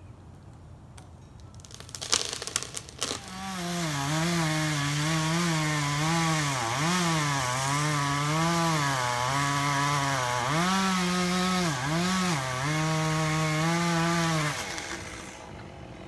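Gas chainsaw, run by a climber up a pine trunk, starting up about three seconds in after a few sharp clicks and running loudly for about eleven seconds. Its pitch keeps dropping and rising again as the saw cuts through the trunk. It then dies away.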